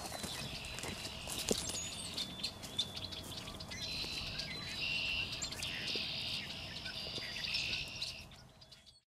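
Songbirds singing and chirping, strongest in the second half, over footsteps crunching away through dry corn stubble. The sound fades out near the end.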